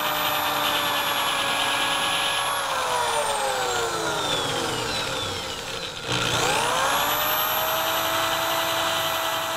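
Electric wire wheel running at speed while corroded steel brake banjo bolts are held against it, a steady motor whine with the wire brushing over metal. About two and a half seconds in the motor is switched off and winds down with a falling whine, then about six seconds in it is switched back on and spins up with a quick rising whine to full speed.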